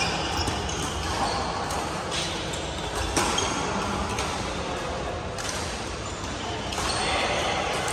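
Busy badminton hall: sharp racket-on-shuttlecock hits from several courts, with a few short shoe squeaks on the court floor, over a steady echoing din of the large hall.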